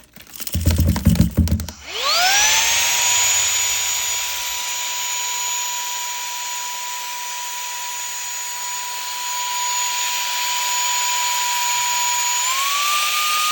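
Cordless handheld mini vacuum switched on: after a second or so of handling knocks, its motor spins up with a rising whine and runs steadily with a high whine over a rush of air. Near the end the whine steps up slightly in pitch.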